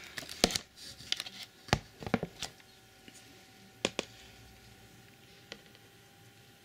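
Plastic containers and a lid knocking and clicking as they are handled: a quick run of sharp knocks in the first two and a half seconds, one more near four seconds and a fainter one later.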